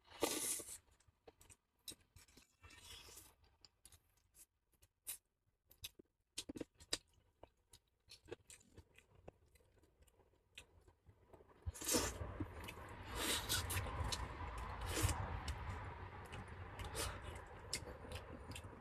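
A person chewing and crunching on chicken bones, with scattered small clicks and crunches. About twelve seconds in, a louder, busier stretch of noise with a low rumble begins.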